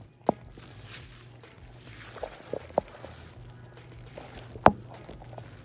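A few sharp taps and knocks, the loudest near the end, over a low steady hum: a phone being handled and repositioned on the edge of a bathtub by a plastic-gloved hand.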